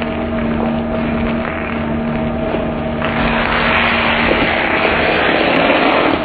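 Twin-shaft shredder's cutter discs running and tearing through a children's shoe, a steady machine hum under grinding and ripping. About three seconds in, the grinding grows denser and louder.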